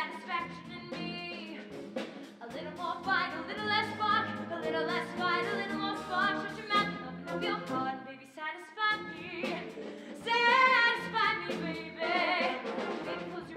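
Singing over instrumental accompaniment: a live musical theatre number.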